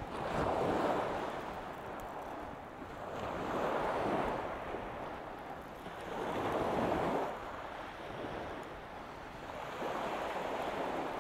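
Small waves breaking on a shingle beach, the surf swelling and falling back about every three seconds.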